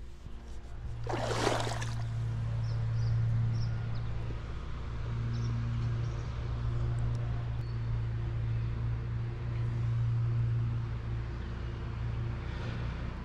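A steady low engine drone that swells and fades slowly, with a short burst of noise about a second in.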